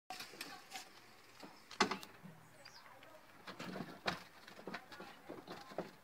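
Wooden and wire bird cages knocking and rattling as they are handled in a pickup truck bed, in a string of sharp clicks and knocks, the loudest about two seconds in and again about four seconds in. A caged bird gives a faint high chirp partway through.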